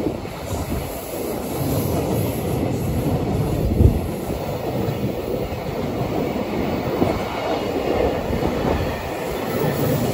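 JR Freight container train passing close by: a steady rumble of the container wagons rolling over the rails, with one sharp knock about four seconds in.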